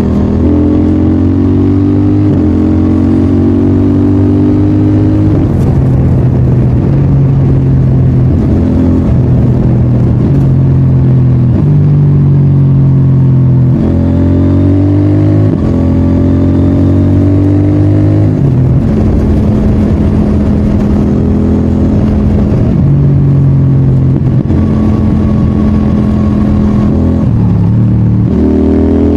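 CFMOTO 800NK Advanced's parallel-twin engine pulling hard and shifting through the gears with its quick shifter: the engine's pitch climbs, then changes suddenly at each clutchless shift, several times, with some steady cruising stretches in between.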